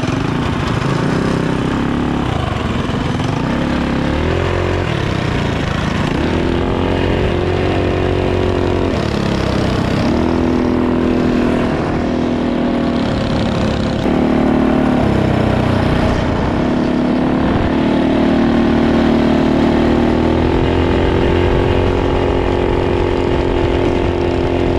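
Small single-cylinder minibike engines running under way, their pitch rising and falling again and again as the throttle is opened and eased off.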